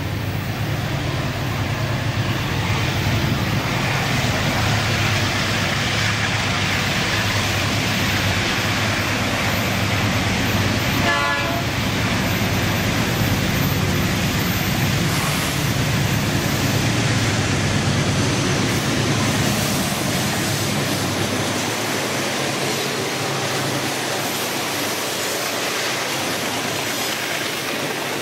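Freight train hauled by diesel locomotives approaching and passing: a steady low diesel engine drone, with a short horn blast about eleven seconds in. Near the end the engine sound gives way to the rolling rumble of loaded gondola wagons going by.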